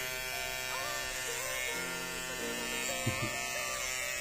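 Cordless electric hair clipper buzzing steadily as it shaves a baby's head, with a brief knock about three seconds in.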